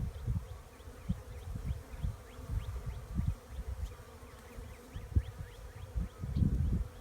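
Honey bees buzzing around a hive box in a steady drone, with irregular low rumbling on the microphone that is louder than the buzz.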